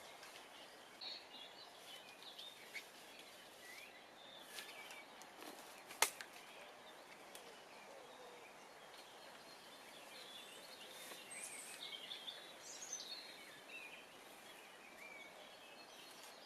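Faint outdoor ambience with scattered small bird chirps and calls over a low steady hiss, and one sharp click or snap about six seconds in.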